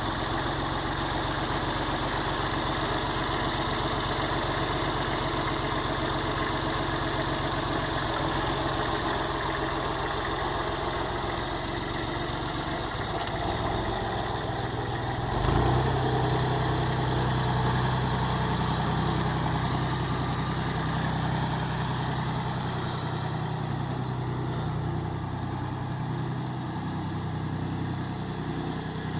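An engine idling steadily. About halfway through there is a thump, and the engine note then turns deeper and a little louder.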